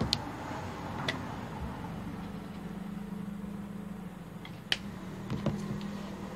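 A few faint, sharp clicks and taps of things being handled on a table, over a low steady hum that sets in about two seconds in.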